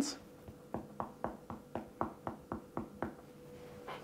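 Clinical finger percussion on a person's own torso: one hand's fingers tapping the fingers of the other hand laid flat on the body, a run of about ten light taps at about four a second from just under a second in to about three seconds in. The taps are used to compare the resonant note over the lungs with the hyperresonant note over the air-filled abdomen.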